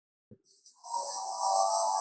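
Stegosaurus creature sound effect: a drawn-out pitched moaning call with a hiss over it, swelling to its loudest about a second and a half in, after a faint click near the start.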